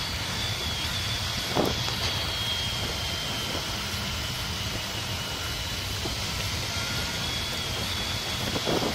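Honda ST1300 Pan European motorcycle ridden at a steady 40–50 km/h: its V4 engine running under light throttle, mixed with steady wind and road noise and a faint high whine.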